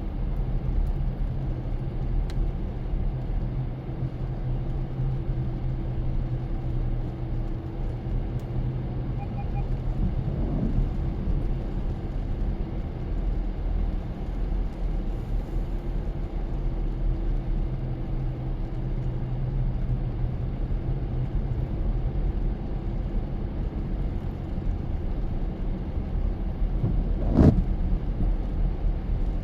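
Car driving: a steady low engine and road rumble with a faint hum, and a single sharp click or knock near the end.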